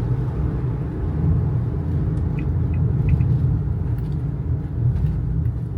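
Kei truck driving along the road: a steady low rumble of its small 660 cc engine and tyre and road noise. A few faint short high chirps sound about halfway through.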